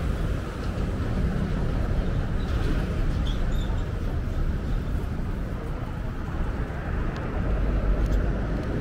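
Steady low engine rumble with a hiss over it, a little louder near the end.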